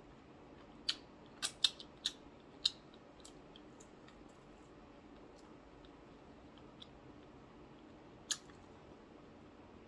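Close-up eating sounds of someone chewing fried food with the mouth: a quick run of sharp, crisp clicks and smacks in the first three seconds, then quieter chewing with one more click near the end.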